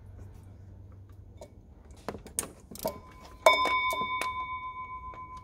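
A few light metallic clicks, then a removed engine bolt dropped into a metal container. It gives a sharp clink about three and a half seconds in that rings on as a bell-like tone, fading over about two seconds.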